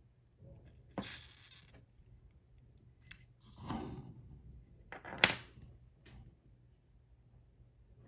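Handling noises at a workbench: a handful of short clicks, knocks and rustles as small plastic drone-leg parts and a pair of metal pliers are picked up and set down on a desk mat. The sharpest knock comes about five seconds in.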